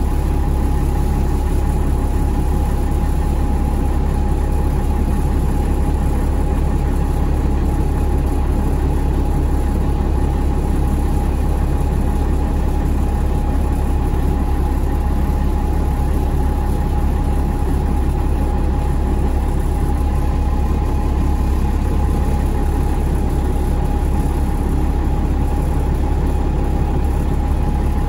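GolAZ-AKA-5225 city bus engine running, heard from inside the cabin: a steady low drone with a thin constant whine above it, holding an even pace with no revving.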